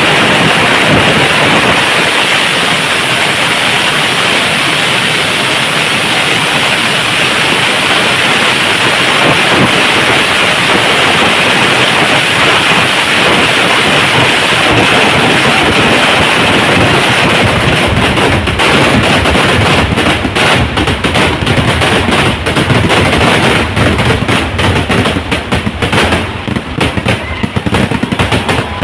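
Kerala temple-festival fireworks barrage: firecrackers going off so fast that they merge into one continuous loud roar. After about two-thirds it breaks up into separate rapid bangs that thin out toward the end.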